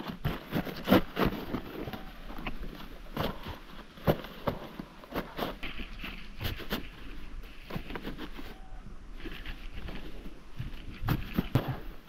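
Dry maize leaves, stalks and husks rustling and crackling as the corn is handled, with scattered irregular knocks.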